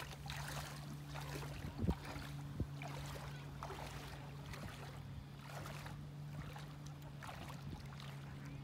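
Legs wading through shallow seawater with light, irregular splashes, the sharpest about two seconds in, over a steady low hum.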